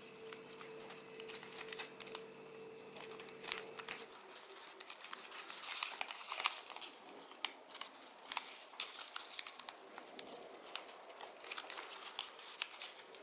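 Origami paper crinkling and rustling as fingers crease and fold it, with many small sharp crackles. A faint steady hum underneath stops about four seconds in.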